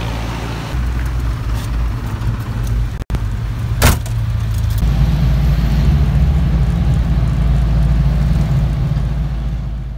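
Road traffic as a jeepney drives past, then, after a cut about three seconds in, the low rumble of a moving jeepney's engine heard from inside the passenger cabin. A single sharp knock comes about a second after the cut.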